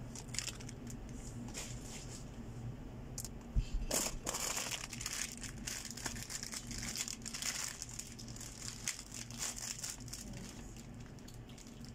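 Plastic packaging crinkling and rustling irregularly as it is handled and opened, with a single low knock about three and a half seconds in.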